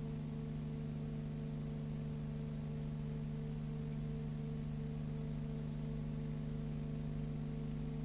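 Steady machine hum with several held low tones and a layer of hiss, one higher tone pulsing a few times a second. It is constant noise from the playback or transfer of silent cine film, not sound from the scene on screen.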